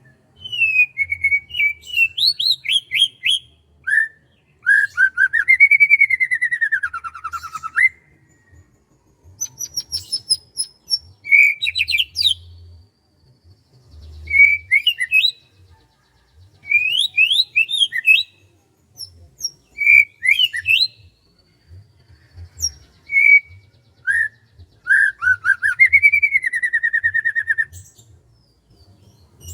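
A songbird singing loud, varied whistled phrases and short trills with brief pauses between them; a long curving whistle that ends in a trill comes about five seconds in and again near the end.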